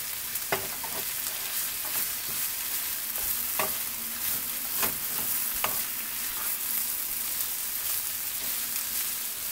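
Dungeness crab meat, mushrooms and garlic sizzling in a nonstick skillet, with a steady frying hiss. A wooden spoon stirs the filling, knocking and scraping against the pan a handful of times.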